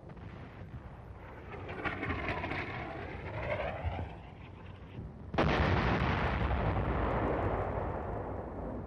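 Artillery gun fire, the enemy gun blast that the sound locator's microphones pick up. A descending whistle comes first, then about five seconds in a sudden loud blast that rumbles on and slowly fades.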